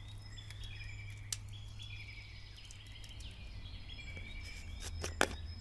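Faint outdoor background: a steady low hum with birds chirping faintly. There is a sharp click about a second in and two louder clicks close together about five seconds in.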